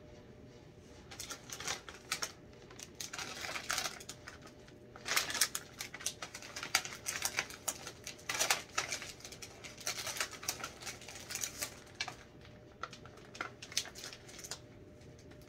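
Plastic cookie packet crinkling and rustling in the hands as it is opened and handled, in irregular bursts of crackles. The crinkling is busiest in the middle and thins to scattered crackles near the end.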